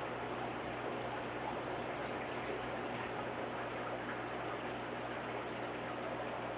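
Steady rushing, water-like hiss of running aquarium water and filtration, with a low steady hum underneath.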